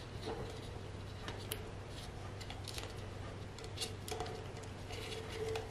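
Rubber band rubbing and tugging against a plastic cup as it is knotted through a hole in the rim, with faint scattered clicks and crackles of the cup over a low steady hum.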